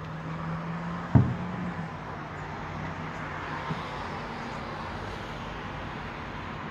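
Distant aerial firework shells bursting: one sharp bang about a second in and a much fainter one near four seconds. Under them is a steady low hum of background traffic.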